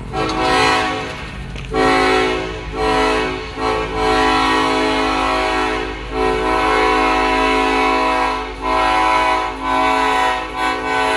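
Ferromex SD70ACe locomotive's air horn sounding several notes at once in long blasts with brief breaks, as the freight approaches the grade crossing. The low rumble of the moving train runs underneath.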